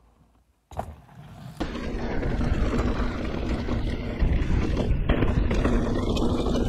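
Mountain bike rolling fast down a dirt singletrack, heard from a handlebar-mounted camera: loud rushing tyre and trail noise with wind rumble on the microphone. It starts abruptly about a second in after a near-silent opening.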